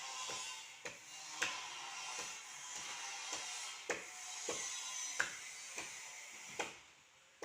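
A tree being cut by hand: sharp knocks on the wood, one every half second to a second, over a steady rasping hiss.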